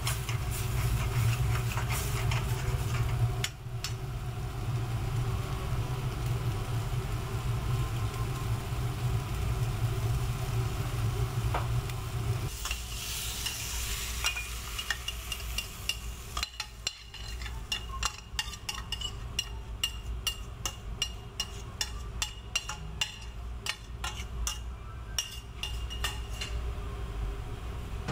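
Seafood risotto sizzling and being stirred in a stainless steel pan, over a steady low hum. About halfway, the hum drops and a metal spoon scrapes the rice out of the pan onto a ceramic plate, with many light clicks and scrapes.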